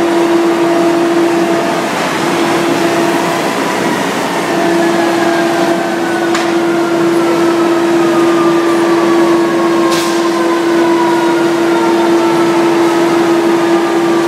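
Fire apparatus engine running at a steady raised speed, a loud even hum, with a fainter whine slowly falling in pitch above it. A few brief sharp knocks cut in, about six and ten seconds in.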